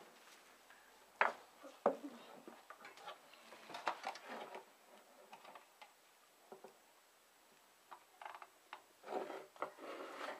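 Two sharp knocks about a second in, then scattered soft clicks and handling noises from children playing with toys, with short faint child voices.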